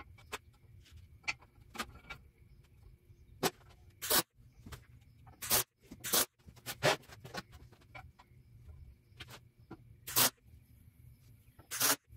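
A scattering of short, sharp knocks and crackles from work on square steel tubing at a steel welding table, about a dozen in all, the loudest around four, six and ten seconds in.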